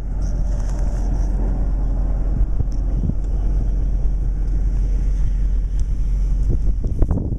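Caterpillar excavator's diesel engine running steadily with a low rumble.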